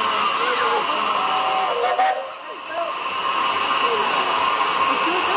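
A 4-8-2 steam locomotive hissing steadily as steam escapes around the top of its boiler. The hiss dips briefly about two seconds in, with faint voices underneath.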